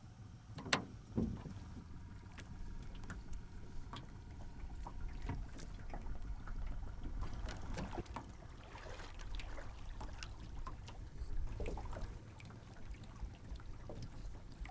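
Water lapping and knocking at a small boat: faint scattered clicks and small splashes over a low rumble.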